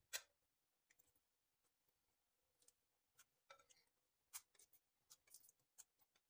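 Near silence with faint, irregular clicks and taps of food and utensils being handled at a mixing bowl, one slightly sharper click right at the start.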